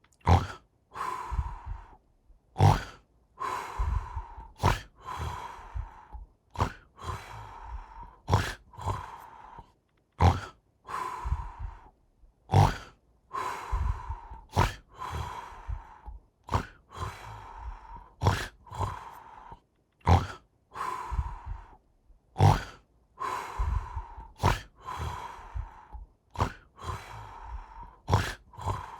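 Cartoon snoring: a short sharp intake followed by a longer breathy exhale with a steady whistle-like tone, repeating about every two seconds.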